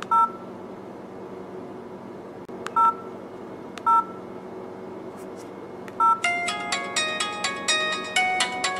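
LG 440G flip phone's two-tone key beeps, four short ones as the menu keys are pressed, then about six seconds in a ringtone starts playing through the phone's speaker: a melody of quick notes, about three or four a second.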